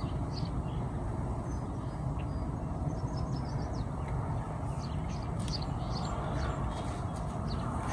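Steady rumble of wind buffeting the microphone, with small birds chirping briefly now and then.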